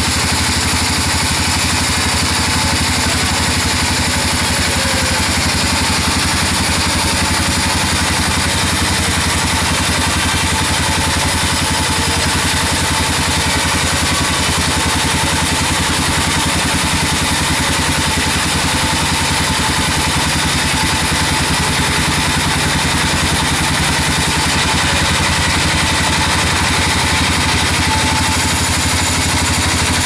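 Band saw mill running steadily as its blade cuts lengthwise through a large albasia (sengon) log. The machine's drone stays at a constant level with a fast, even low-pitched pulsing and a steady high whine.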